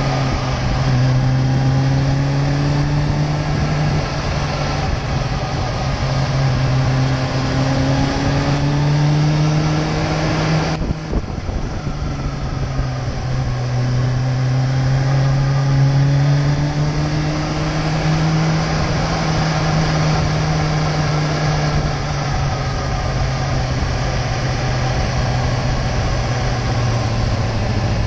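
Kawasaki sport motorcycle engine running at cruising revs, heard from the rider's seat over steady wind and road noise. Its pitch rises and falls slowly with the throttle, with a brief dip about eleven seconds in.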